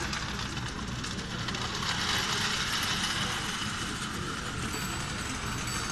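Carette tinplate O gauge toy train clattering along its sheet-metal track, a steady rattle of many small clicks that grows a little louder around the middle, with room chatter of voices behind it.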